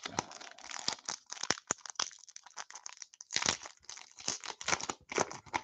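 Foil wrapper of a hockey card pack being torn open and crinkled by hand: a run of irregular crackles and rustles, louder about three and a half and five seconds in.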